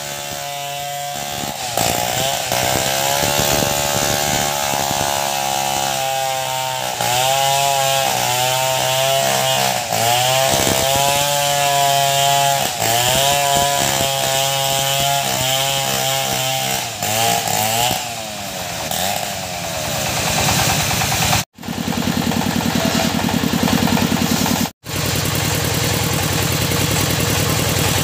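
Engine-driven saw cutting teak logs: its pitch sags as the cut bites and recovers, again and again. Near the end, after two abrupt breaks, an engine runs steadily with an even pulse.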